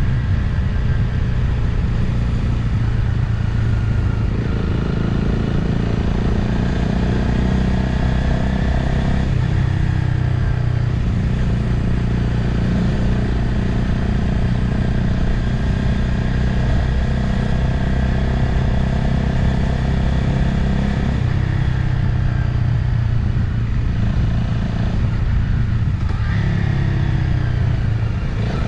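Motorcycle engine running under way with wind noise from riding, the engine note holding steady and shifting in pitch a few times, rising again near the end.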